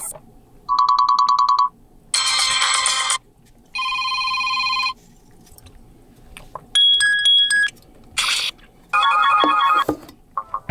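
Built-in alert tones of an Oukitel OKT1 smartphone played one after another: about six short electronic beeps and chimes, each around a second long, with short pauses between them.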